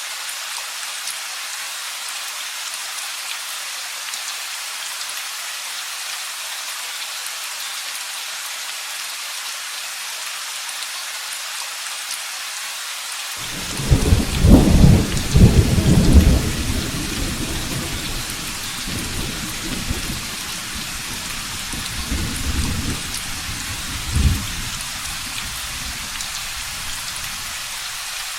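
Steady heavy rain hissing throughout. About halfway through, a loud thunderclap breaks in and rolls on as a rumble for several seconds, fading in smaller swells, with one last short crack about four seconds before the end.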